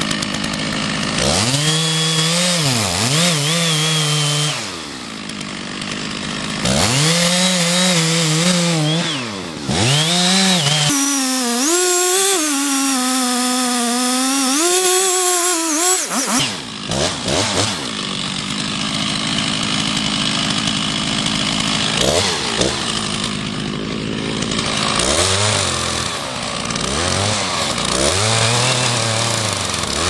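Gas chainsaw cutting into the base of a large tulip tree trunk during felling. Its engine pitch sags under load and recovers several times.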